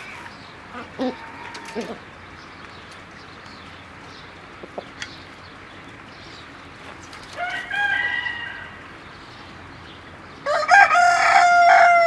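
Rooster crowing twice, the second crow louder and longer, starting about two seconds before the end and falling in pitch as it trails off, with a few short clucks from hens early on.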